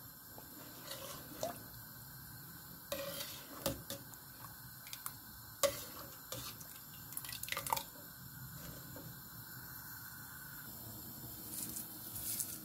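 Metal ladle stirring a thin, watery curry in a stainless steel pot: liquid sloshing, with a few scattered clinks of the ladle against the pot.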